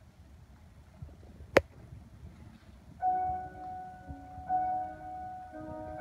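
A single sharp click about a second and a half in, then a grand piano starts playing about halfway through: ringing notes and chords struck every second or so.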